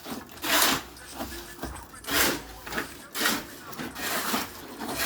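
Repeated rough scraping strokes, roughly one a second and unevenly spaced, like a hand tool rasping or rubbing across a hard surface.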